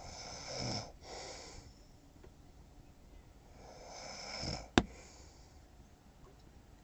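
A sleeping man snoring: two long, rasping breaths about four seconds apart. The second ends in a single sharp click.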